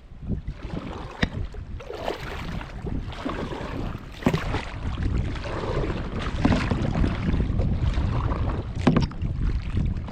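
Water splashing and sloshing around a paddle board, with wind rumbling on the microphone and four short, sharper splashes a couple of seconds apart.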